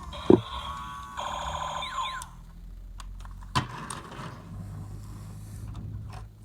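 Electronic beeping and buzzing tones for about two seconds, with a sharp knock near the start, then a single click and a low hum.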